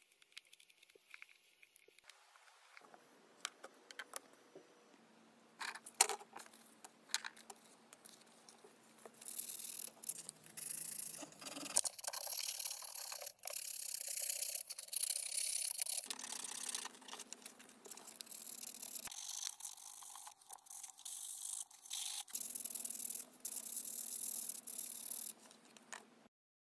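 Small knife blade whittling a poplar lure body, with sparse short scraping cuts. From about nine seconds in, sandpaper rubs back and forth over the wood in repeated strokes, and this is the loudest part.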